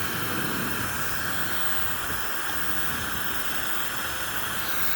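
Hair dryer blowing steadily: an even rush of air with a faint, thin high whine over it.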